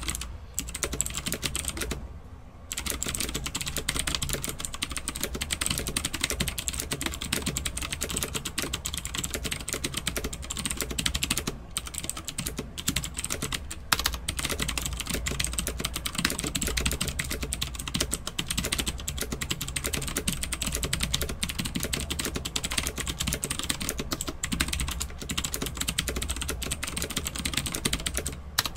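Fast continuous typing on a Havit Magic Eagle mechanical gaming keyboard with clicky blue switches, a dense stream of loud key clicks, with a brief pause about two seconds in.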